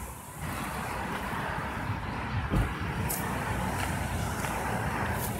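2005 Nissan Xterra's 4.0-litre V6 idling steadily through a Flowmaster Super 44 muffler, a low even exhaust note, with one brief louder pulse about two and a half seconds in.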